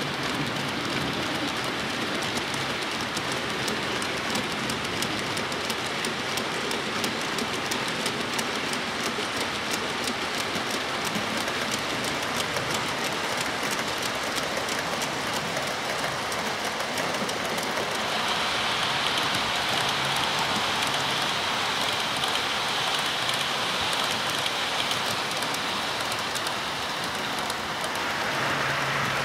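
An OO-gauge model train running on the layout track, a Class 56 diesel model hauling coal hopper wagons: a steady hissing rattle of wheels on rail with rapid fine clicks and a faint steady whine. The rattle grows a little louder and brighter about two-thirds of the way through.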